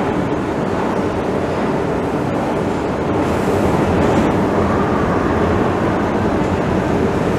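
Long station escalator running, its moving steps and drive making a steady mechanical noise, heard while riding it.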